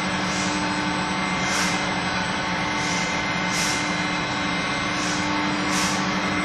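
Pasta extruder machine running: a steady motor hum and whine with fan noise, and a brief hiss that comes back about once a second.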